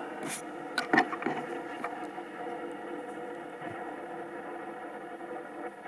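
A few sharp clicks and light knocks in the first two seconds, the loudest about a second in, over a steady hum.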